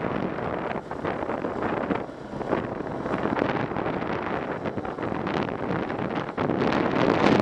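Wind buffeting the microphone of a camera on a moving ATV, over the ATV's running engine and its tyres on a gravel track. The noise gets louder near the end.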